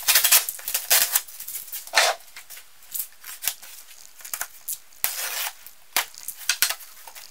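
Packing tape being torn and cut open on a cardboard shipping box, with cardboard and plastic scraping and crinkling. It comes as a series of short tearing rasps and clicks, loudest in the first two seconds and again about five seconds in.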